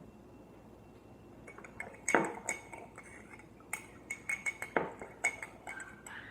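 A spoon clinking against a container in a run of irregular strikes, starting about a second and a half in, each with a brief ringing note.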